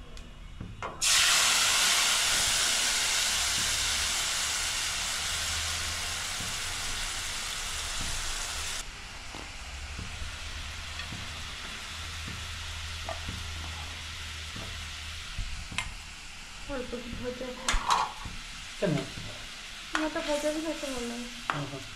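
Food going into hot oil in a pan: a loud sizzle breaks out about a second in, fades over several seconds and settles into a steady frying sizzle, with a few light knocks of a utensil near the end.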